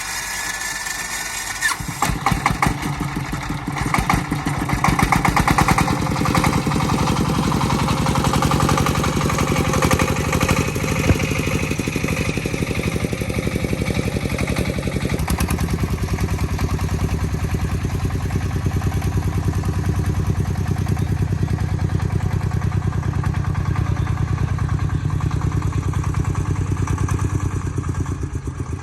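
Công nông farm vehicle's single-cylinder diesel engine running with a rapid, even chugging. It gets much louder about two seconds in and then keeps running steadily.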